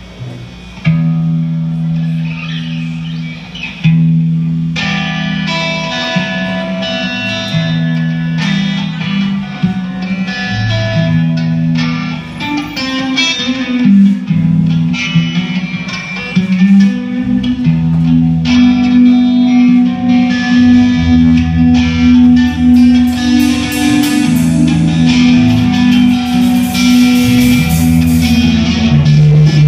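Live rock band playing: electric guitars, bass guitar, drums and keyboard. A low guitar riff starts about a second in, and the full band builds in over the next few seconds, growing heavier in the low end midway through.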